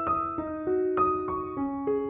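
Background piano music: single notes struck one after another at a gentle pace, each ringing on and fading under the next.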